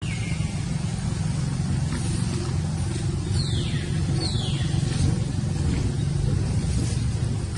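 A steady low rumble, with two short high-pitched calls that fall in pitch, about three and four seconds in.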